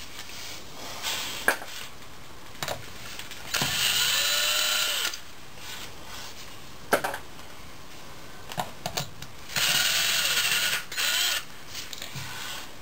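Ryobi 18V cordless drill/driver with a socket spinning bolts out of a transmission's reverse servo cover in two short bursts. Each burst spins up and winds down. A few sharp metal clicks fall between the bursts.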